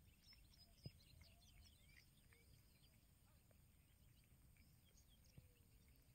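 Near silence: faint outdoor ambience with scattered faint high bird chirps and a single faint click about a second in.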